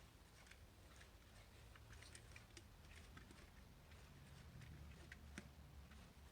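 Faint, irregular small clicks and taps of a plastic quartz alarm clock being handled during a battery change, over a low hum; the sharpest click comes about five seconds in.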